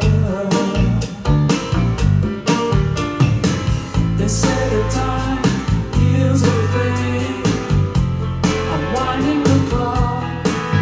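A song with singing, guitar and a steady drum beat, played back through Paradigm Studio 100 v1 loudspeakers.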